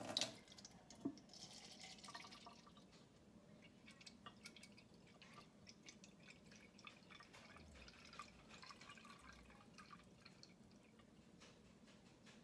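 Faint trickle of a thin stream of tap water from a kitchen faucet running into a plastic measuring cup, with small drips and a light click about a second in.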